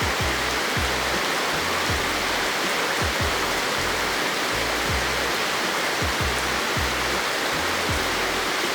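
Steady hiss of rain falling, with a laid-back background music track's kick drum and bass beating under it.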